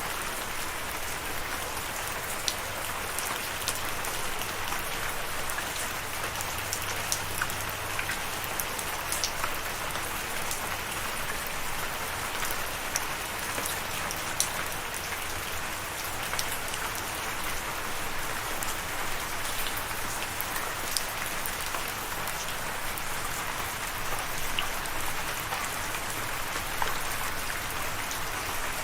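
Steady rain falling, with scattered individual drops ticking sharply on a hard surface.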